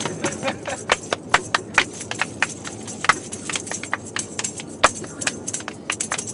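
Irregular sharp wooden clicks and knocks from a small hand-held percussion instrument being played, about three a second, over the hum of a car cabin.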